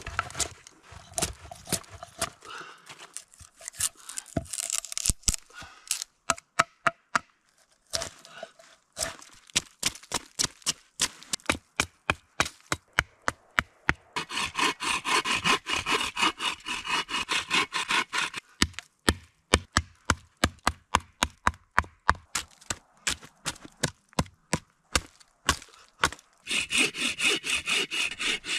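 Hand woodworking on a log: a steady run of sharp hatchet strikes chipping into the wood, with two stretches of quick back-and-forth hand-saw strokes, one about halfway through and one near the end.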